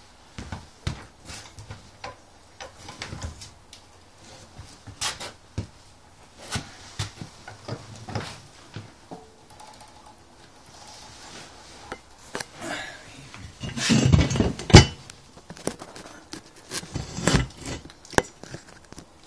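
Small hard objects being handled: scattered clicks and knocks, with a louder clatter about two thirds of the way through.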